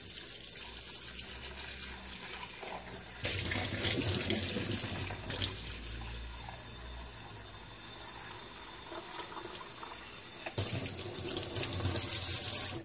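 Kitchen faucet running into a stainless steel sink, its stream pouring into a small electric ramen pot to rinse out the soap suds. The water gets louder for a couple of seconds about three seconds in, and again near the end.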